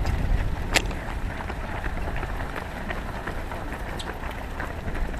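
Footsteps of a large pack of road-race runners on asphalt: many quick, overlapping footfalls, with a sharper click about a second in and another near four seconds.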